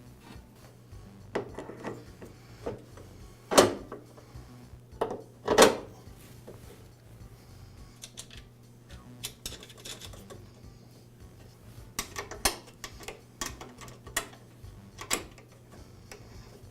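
Metal mower parts and hand tools clinking and knocking during reassembly of the drive transmission, with two louder knocks a few seconds in and a run of quick clicks about two-thirds of the way through.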